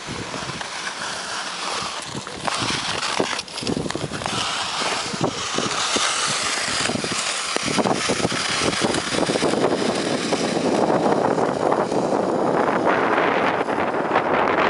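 Ice-skate blades scraping and gliding over natural lake ice, with wind rushing over the microphone; many short scrapes at first, then a louder, denser rushing from about two-thirds of the way in.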